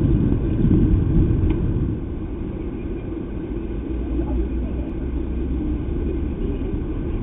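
Steady low outdoor background rumble with faint, indistinct voices in it.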